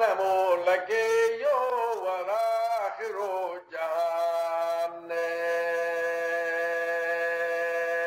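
A man's voice chanting a line of Somali verse in a wavering melody. After a short break, about four seconds in, it settles on one long held note.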